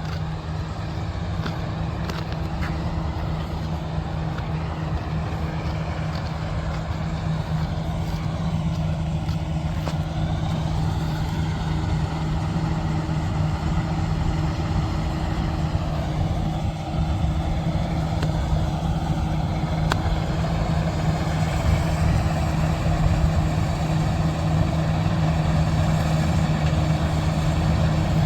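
Kartar combine harvester's diesel engine running steadily under load, growing gradually louder.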